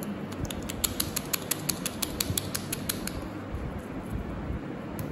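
Quick run of small plastic clicks, about seven a second for nearly three seconds, as a cap is twisted shut on an eyeliner tube; a few more clicks near the end.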